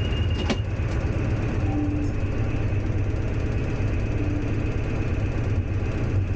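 Diesel locomotive engine running steadily under power, heard from inside the driving cab together with the rumble of the train on the track. A single sharp click about half a second in.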